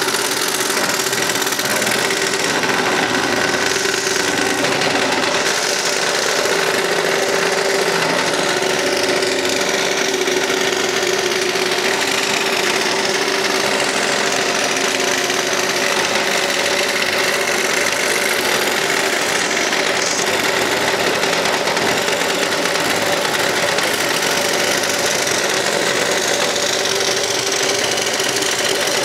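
Scroll saw running steadily, its reciprocating blade cutting through a wooden workpiece as it is fed by hand.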